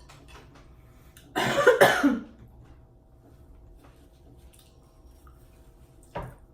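A person coughs once, a short double-pulsed cough about a second and a half in. A brief sharp sound follows near the end.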